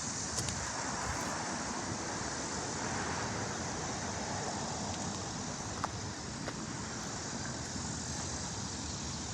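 Steady road traffic noise, an even rushing hiss of passing vehicles, with a few faint ticks.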